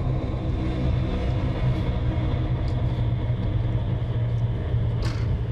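A steady low droning hum made of several held low tones, with a brief hiss about five seconds in.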